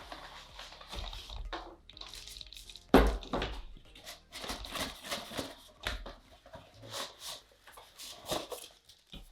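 Hard plastic drone accessories and their packaging being handled: irregular clicks, knocks and rustles as items are lifted out and set down, with one loud thump about three seconds in.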